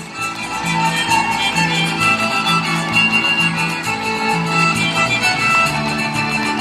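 Live Mexican folk string ensemble playing a dance tune: a violin leads the melody over guitar accompaniment and a moving bass line.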